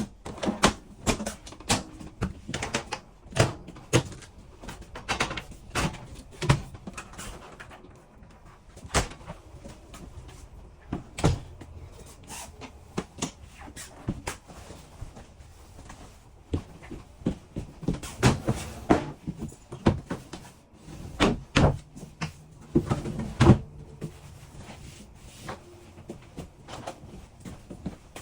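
Irregular knocks and clicks of cabinet doors, drawers and interior doors being opened and closed inside a travel trailer, some in quick clusters.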